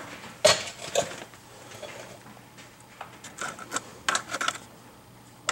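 Small steel hardware (bolt, washer, screwdriver) clinking and tapping against a suspension bracket as it is worked into place by hand. There is a sharp knock about half a second in and another near one second, then a cluster of light clinks later on.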